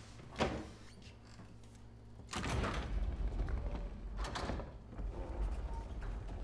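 A sharp latch click, then about two seconds in a pantry door opening and a low, steady mechanical rumble of a sliding panel, with another scraping burst a couple of seconds later.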